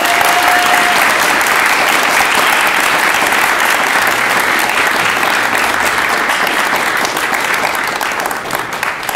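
Audience applauding: dense, sustained clapping that eases off near the end. A short steady tone sounds in the first second.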